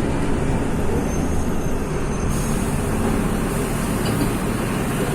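Mercedes-Benz OF-1724 bus's OM-926 LA six-cylinder turbodiesel running steadily while the bus is under way, with road and body noise mixed in.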